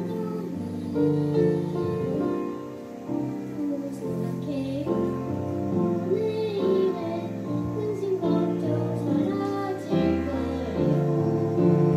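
Children's choir singing a slow, gentle song in unison or harmony, accompanied by grand piano.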